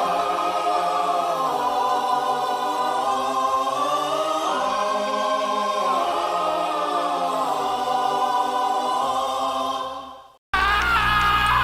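Many voices screaming together in long, held, overlapping cries, fading out about ten seconds in. After a brief silence another scream starts, its pitch sliding up and down.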